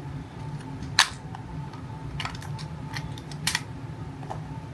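Clicks and taps from handling a small plastic action camera and its parts: one sharp click about a second in, then a few fainter ones, two close together past the middle.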